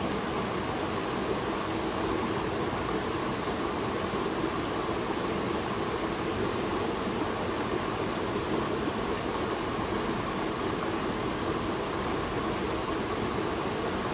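Steady rush of a flowing river, an even noise with no distinct splashes.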